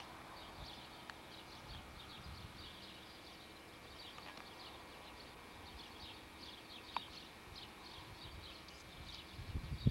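Birds chirping steadily in the background, many short high chirps overlapping. Low rumbles on the microphone swell near the end, and there is one sharp click about seven seconds in.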